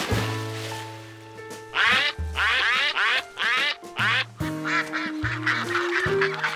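Ducks quacking in a quick string of loud calls from about two seconds in, with softer quacks after, over background music.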